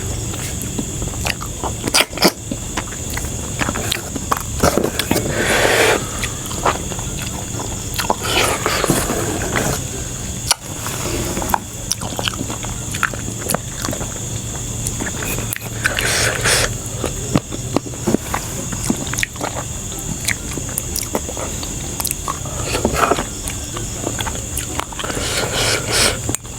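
Close-up eating sounds: chewing and biting food, with many short sharp clicks and a few longer noisy bursts of mouth noise.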